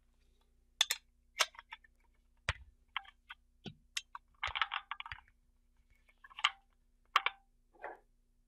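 Allen key and wrench clicking and clinking against the bell-crank bolt of a Dillon 550B powder measure as the bolt is worked loose: a dozen or so sharp, irregular clicks, with a short clatter about four and a half seconds in.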